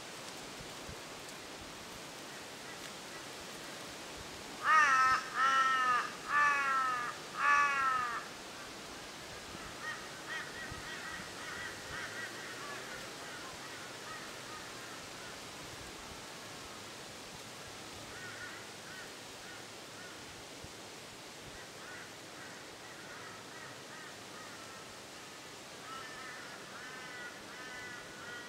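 Crow cawing: four loud, falling caws in quick succession about five seconds in. Fainter caws from further off follow on and off through the rest, over a steady outdoor hiss.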